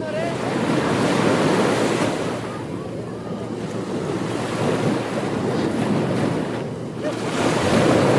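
Ocean waves breaking on a beach: a dense wash of surf that swells and recedes as each wave comes in, roughly every three seconds.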